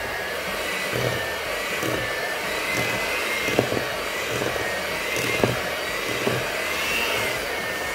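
Electric hand mixer running steadily, its twin beaters churning thick banana bread batter in a stainless steel bowl, with a steady whine that wavers slightly in pitch. A couple of sharp knocks come as the beaters strike the bowl, about three and a half and five and a half seconds in.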